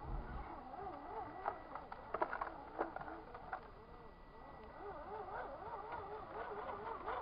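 Electric motor and gear drive of a radio-controlled scale rock crawler whining as it crawls over snowy, frozen clumps, the pitch wavering up and down with the load. A few sharp clicks and knocks come from about a second and a half to three and a half seconds in.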